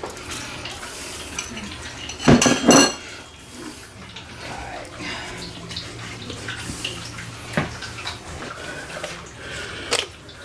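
Hands working rub into raw pork ribs in a thin disposable aluminium foil pan: crinkling and handling noise from the pan and meat, with a loud metallic double clatter about two seconds in and a couple of sharp clicks later.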